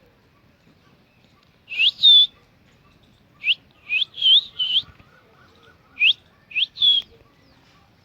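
Baby parrot giving shrill, rising whistled calls, nine short calls in three quick clusters.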